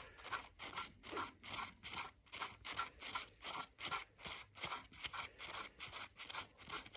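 A hand file working metal with steady back-and-forth scraping strokes, about three a second.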